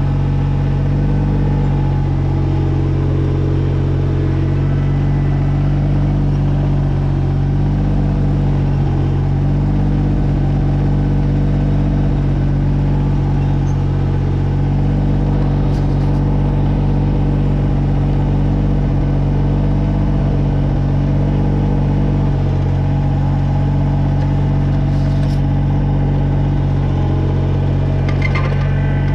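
2003 Kubota BX22's three-cylinder diesel engine running steadily at constant speed, with a few faint clicks over it.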